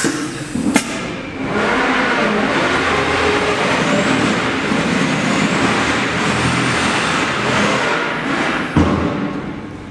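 AKM6090C automatic-tool-change CNC router running: a sharp click about a second in, then a loud steady machining noise for about seven seconds, ending in a thump before it dies down.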